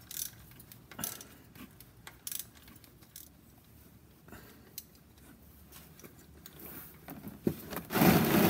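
Scattered small metallic clicks and knocks as a car's spin-on oil filter is worked loose by hand, then near the end a sudden loud rush of oil spilling out from around the loosened filter.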